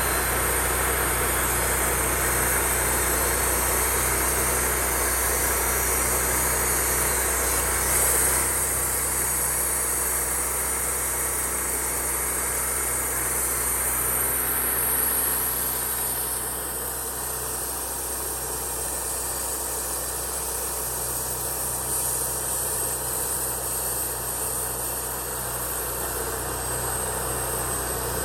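Engine running steadily under a broad hiss, easing off a little about eight seconds in and again at about sixteen.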